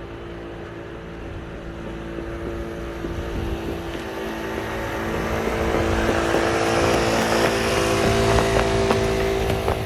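Small garden tractor's engine running steadily, growing louder over the first several seconds.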